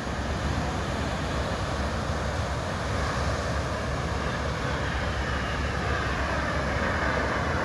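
Jet aircraft engine noise from a smoke-trailing jet making a low pass and pulling up, with a faint whine that falls in pitch about halfway through.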